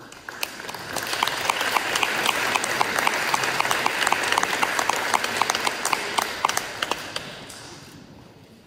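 Audience applauding: the clapping starts, swells within the first second, holds steady, then dies away near the end.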